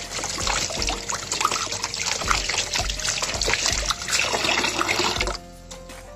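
Tap water running into a stainless steel sink, a steady rushing splash that stops suddenly about five seconds in.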